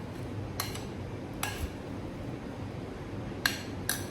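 Four light clinks of a kitchen utensil against a mixing bowl as shortening is added to flour, spread unevenly: two in the first second and a half, two close together near the end, over a low steady hum.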